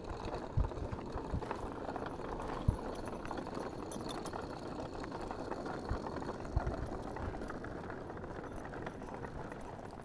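Steady rush of flowing brook water, with a few dull thumps of footsteps on the trail.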